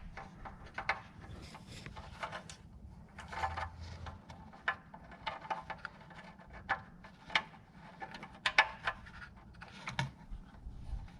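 Light, irregular metallic clicks and taps of hand tools working an engine oil drain plug, fitted with a new copper crush washer, as it is threaded in and tightened snug.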